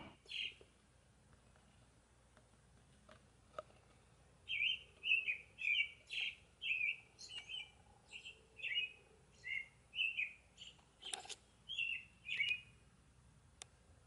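Northern cardinal singing: one short note, then a run of short slurred whistles repeated about two a second, beginning a few seconds in.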